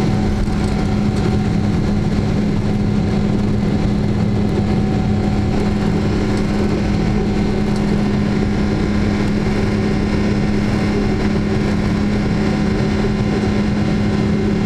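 Jet airliner engines heard from inside the cabin as the plane climbs away after takeoff: a loud steady drone with a strong low hum running through it.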